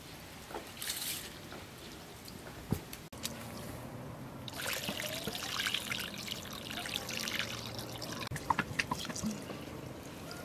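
Water being poured while rice is washed in a bowl: cloudy rinse water tipped off the rice, trickling and splashing onto the ground from about four seconds in, with fresh water poured into the bowl near the end.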